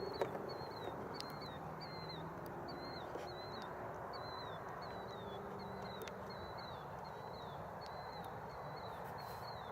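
A small creature's call, a short high-pitched falling chirp repeated evenly about one and a half times a second, over a steady low background hum.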